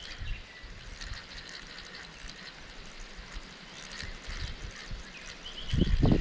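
Small birds chirping and calling, with short repeated chirps, over an uneven low rumble that grows loud near the end.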